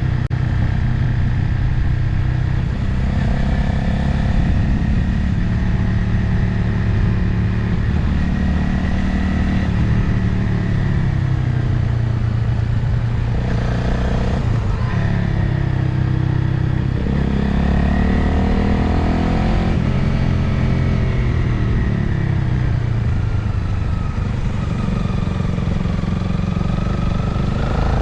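Motorcycle engine under way, its pitch rising and falling several times with throttle and gear changes, over a steady rush of wind on the microphone.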